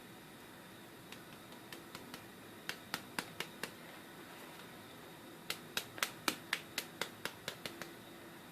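Light taps of a rubber mallet on the new copper windings of a quarter-horsepower washing machine motor's stator, pressing the coils into shape: a few scattered taps, a quick run of about five, then a steady run of about ten at roughly four a second.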